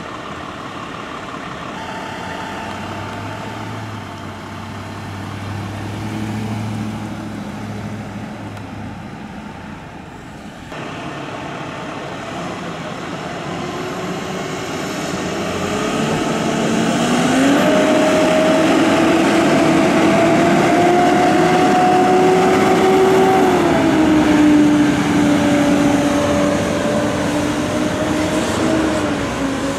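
An emergency vehicle's engine idles with a low hum. After a cut it gets louder and revs up, the pitch rising about halfway through and holding. The pitch then steps down twice while it stays loud, as when a vehicle pulls away.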